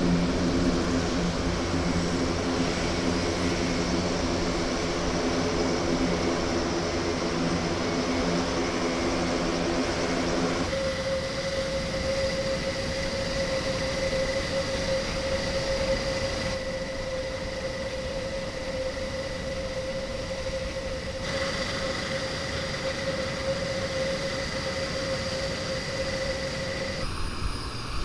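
Airbus A400M Atlas's Europrop TP400 turboprop engines running on the ground with propellers turning: a steady low propeller drone that switches abruptly, about ten seconds in, to a steady higher turbine whine, with a few further sudden shifts in tone.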